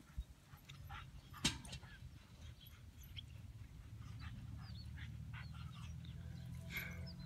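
Dogs giving short, faint whines and yelps scattered through, with a sharper one about a second and a half in, over a low steady hum that rises after about three seconds.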